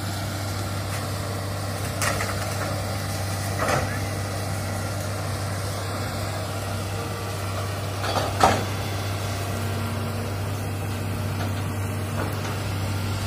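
Tracked hydraulic excavator's diesel engine running with a steady low hum, broken by a few short knocks and clanks, the loudest about eight and a half seconds in.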